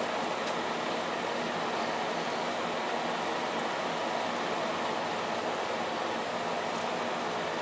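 Pot of pork roast and vegetables bubbling away at a steady simmer.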